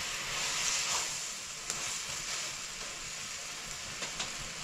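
Food sizzling as it fries in a pan: a steady hiss with a few faint ticks.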